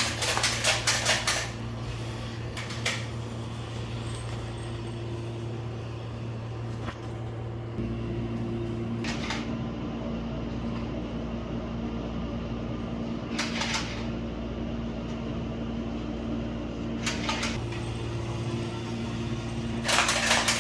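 A steady mechanical hum whose tone shifts about eight seconds in, broken every few seconds by short bursts of rapid clicking.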